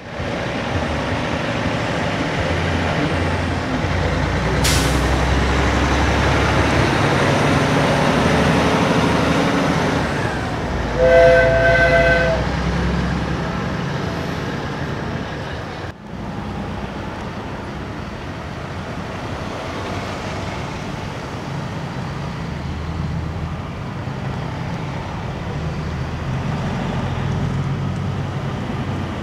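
Semi trucks' diesel engines rumbling as the rigs drive slowly past. About eleven seconds in, a truck air horn sounds a steady chord for about a second and a half, the loudest sound here. A single sharp click comes near five seconds.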